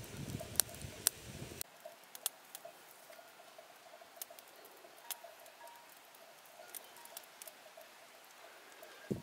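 Wood campfire burning with a low rush and two sharp crackling pops. It cuts off abruptly about a second and a half in, leaving only faint scattered light ticks.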